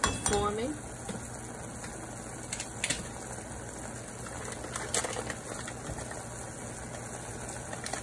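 Caramel sauce and apple slices bubbling in a stainless steel pot on a gas burner: a steady low sizzle with a few scattered pops. A brief wavering squeak comes near the start.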